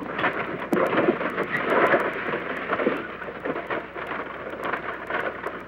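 Hiss and dense crackle of an old, worn film soundtrack, with uneven surges of rumbling noise underneath.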